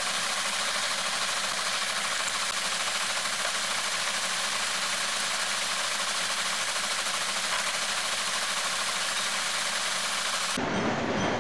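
Metal lathe running: a steady, even machine noise that is thin and hiss-like, with little low rumble.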